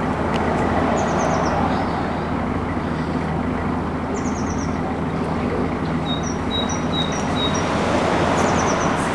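Narrowboat's Beta Marine diesel engine running steadily at cruising speed, with small birds chirping over it in short phrases of quick high notes, several times.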